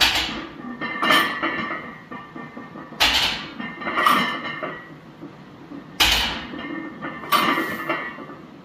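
Plate-loaded barbell clanking down onto a power rack's steel safety pins during rack pull reps: three heavy metallic clanks about three seconds apart, each ringing briefly, with a lighter clink about a second after each as the bar comes off the pins.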